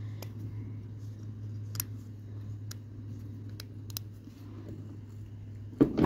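A few faint metal clicks as a small retainer is worked onto the grease-packed axle spindle in a garden tractor's front wheel hub, over a steady low hum.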